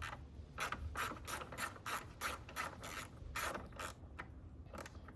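Socket ratchet clicking in quick, evenly spaced strokes, about three a second, as the 10 mm nut of a battery hold-down is turned; the clicking stops about four seconds in.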